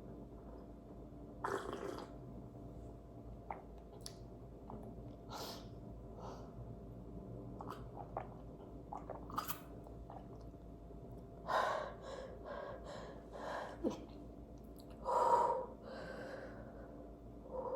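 Close-up wet mouth and throat sounds of a person drinking chocolate milk: many small clicks and swallows, with a few short louder breathy bursts, the loudest about 15 seconds in.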